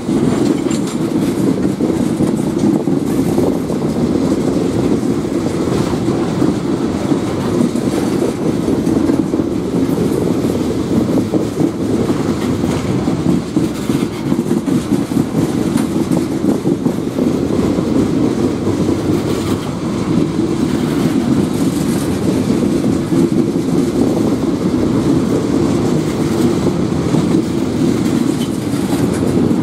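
Tank cars of a slow-moving freight train rolling past: a steady, loud run of steel wheels on the rails.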